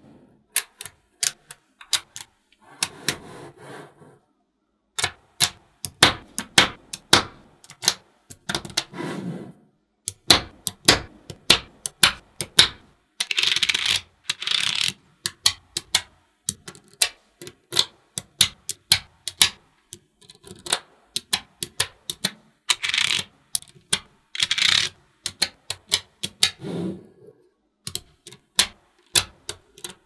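Small magnetic balls clicking sharply as strips of them are snapped onto one another, in irregular single clicks and quick runs. A few brief rattling stretches come where many balls shift and settle together.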